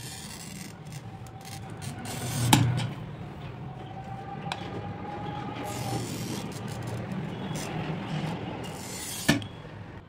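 Pen-style glass cutter's wheel scoring a sheet of mirror glass: a continuous scratchy rasp as the wheel is drawn along the cut lines. There is a sharper, louder click about two and a half seconds in and a short one near the end.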